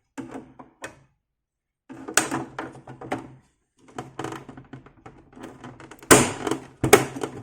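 Hard plastic of an Amiga 500's case knocking and clicking as a cover is handled and clipped into place. Irregular small knocks and rattles, with the loudest knocks about six and seven seconds in.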